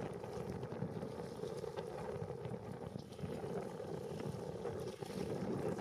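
Steady rushing of river rapids, with wind buffeting the microphone.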